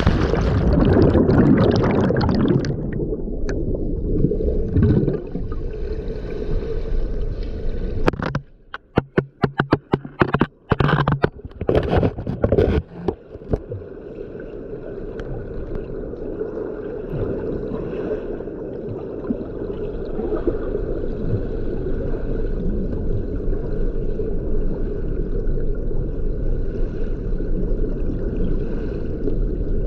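Muffled, continuous water noise with gurgling, heard as if through a submerged or wet camera. About eight seconds in it drops away to a run of sharp knocks and splashes for several seconds, then the steady muffled water sound returns.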